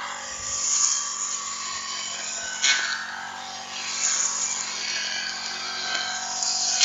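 Firman four-stroke brush cutter running steadily, its spinning cutting head swishing through grass, with one short sharp louder hit about two and a half seconds in.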